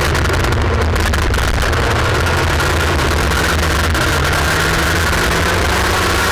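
Onboard sound of an IAME X30 125cc two-stroke kart engine running hard at racing speed. Its pitch sags a little about halfway through as the kart goes through a corner, then climbs again as it accelerates out.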